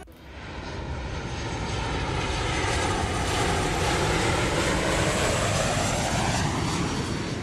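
Airplane sound effect: an aircraft engine droning with a rushing noise as it flies past, swelling in over the first two seconds, holding steady, then dropping away near the end.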